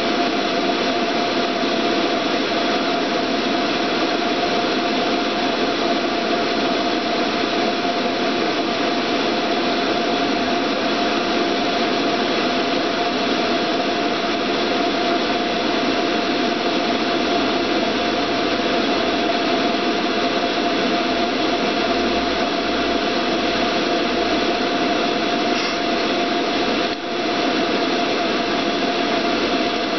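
Pool pump motor running steadily: an even rushing noise with a steady whine on top, dropping for an instant near the end.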